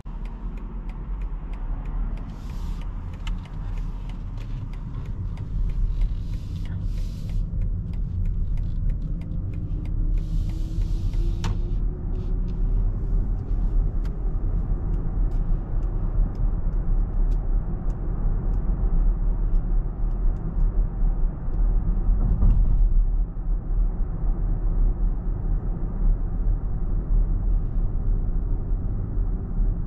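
Steady low road and tyre rumble from a BMW iX3 electric SUV on the move, with a faint whine rising in pitch around the middle. A few short ticks and hissy bursts come in the first dozen seconds, and a brief louder swell near the two-thirds mark.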